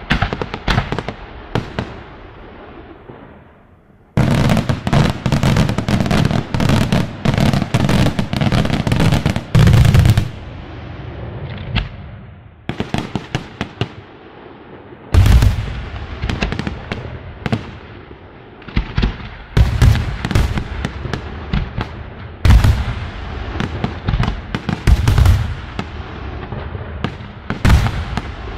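Fireworks display: aerial shells bursting in a rapid barrage of bangs and pops for several seconds, then a quieter stretch, then heavy single booms every few seconds as large shells break over continued popping.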